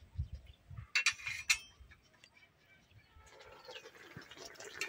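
A few sharp metal clinks about a second in, a cooking utensil knocking against the metal kadai and bowls, after some soft low thumps. A faint hiss slowly grows near the end.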